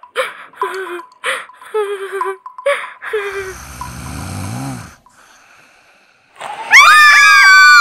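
A woman snoring in her sleep: short voiced snorts, then one long rasping snore about three seconds in. Near the end a sudden loud, high, held cry breaks in, falling in pitch as it stops.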